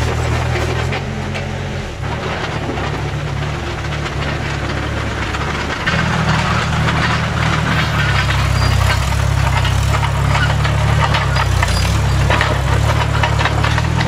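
Vintage Bristol 25 crawler dozer running under load as it pushes a pile of pine needles and soil with its blade, a steady engine note with clattering from its steel tracks. Louder from about six seconds in, as the machine is closer.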